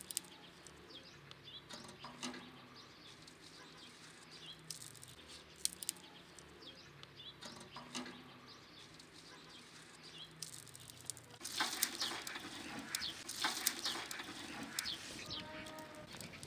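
Dry twigs crackling and snapping as they burn in a metal barrel stove, the crackling growing much louder and denser about eleven seconds in as the fire flares up; birds chirp faintly.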